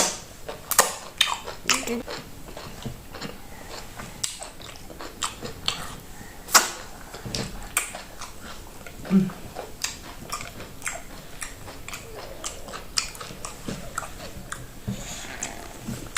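Close-up mouth sounds of a person eating fufu with okra soup: chewing, biting and smacking, with sharp clicks at irregular intervals.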